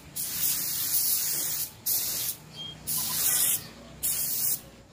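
Small gravity-feed paint spray gun spraying a pearl coat in four short hissing bursts, each a second or so long, as the trigger is pulled and released.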